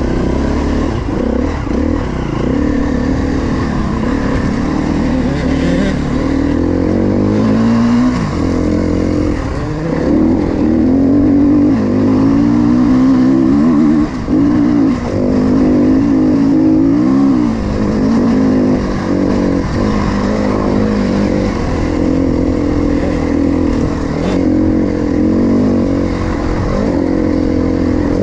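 KTM 350 XC-F dirt bike's four-stroke single-cylinder engine working under load up a loose gravel climb, its note rising and falling with throttle and gear changes, with a brief drop about fourteen seconds in.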